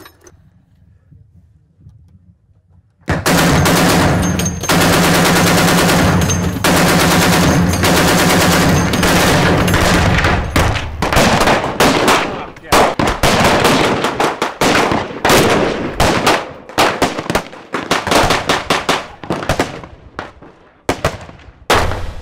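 A belt-fed heavy machine gun opens fire about three seconds in, firing long, nearly continuous automatic bursts for about seven seconds. After that come many separate gunshots in quick, uneven succession, handgun fire on the range.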